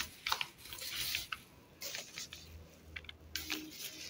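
Thin plastic bag and brown paper wrapping crinkling and rustling in irregular crackles as a food parcel is unwrapped by hand.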